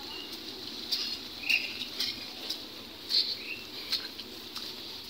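Small birds giving short high chirps about once a second, with faint scattered clicks beneath.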